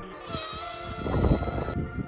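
Buzzing whine of the HeeWing F-01 FPV flying wing's brushless motor and propeller in flight, a high tone with several overtones that drifts slightly in pitch. About a second in, a loud rush of wind noise on the microphone briefly covers it.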